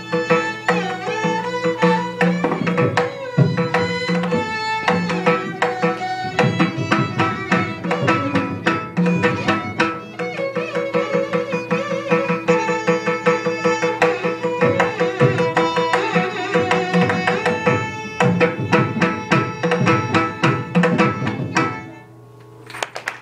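Carnatic music: a melody over a steady drone, with dense hand-drum strokes, stopping about twenty-two seconds in.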